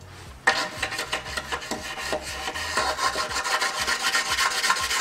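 Rapid, repeated scraping strokes of a hand tool along the gasket flange of a Jaguar E-Type's removed oil pan, taking off stuck-on old gasket material; it starts about half a second in, with a faint squeal in the strokes.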